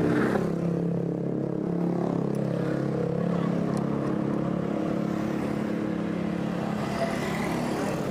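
Motor scooter engine idling steadily.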